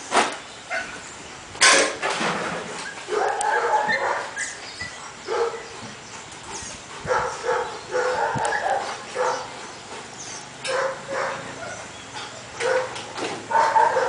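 A dog barking twice near the start, then giving short high-pitched whines and yips on and off.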